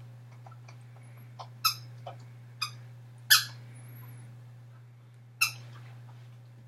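A dog chewing a squeaky toy: four sharp, short squeaks and a few fainter ones, the loudest a little over three seconds in.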